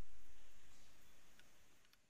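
Faint background noise, a low rumble with hiss, fading out steadily, with a couple of faint ticks in the second half.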